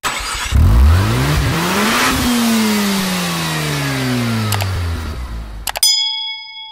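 A car engine revving up over about a second and a half, then winding slowly down. Near the end come a couple of mouse-style clicks and a bright notification-bell ding that rings on.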